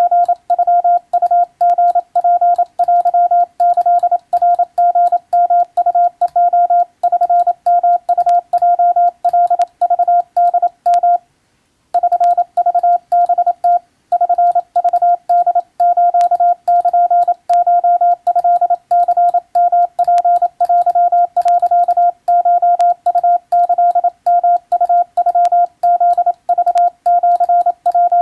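Morse code sent by hand on a telegraph key: a steady single-pitch beep keyed on and off in quick dots and dashes, with a faint click at each keying and one short pause about eleven seconds in.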